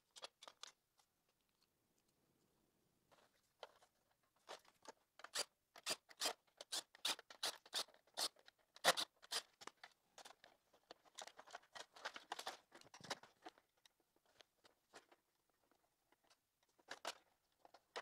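Plastic clicks, snaps and rattles from hands prying at and handling the Roomba 670's plastic chassis and bumper shell. The clicks come thick and fast through the middle and are sparse near the start and the end.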